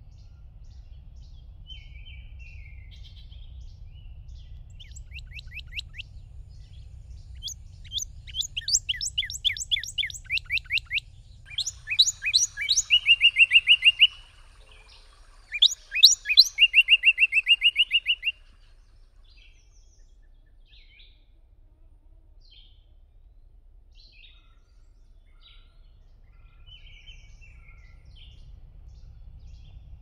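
Songbirds singing. A run of quick falling notes gives way to two loud phrases, each of sharp falling notes ending in a fast trill, with scattered short chirps before and after. A low steady rumble lies underneath.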